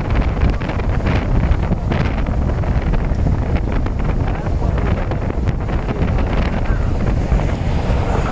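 Heavy wind buffeting the microphone over a steady low rumble.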